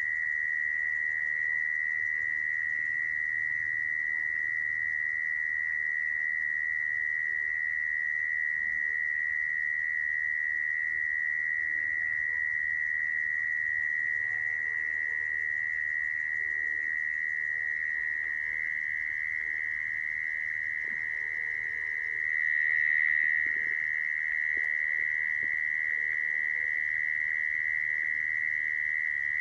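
Mole cricket's continuous trilling song, a steady high-pitched tone that swells briefly a little over two-thirds of the way through.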